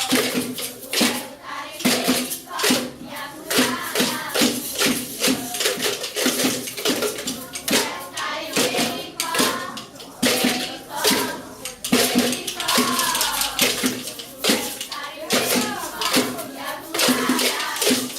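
Children's worship group singing a song with rhythmic hand clapping and percussion strikes running throughout.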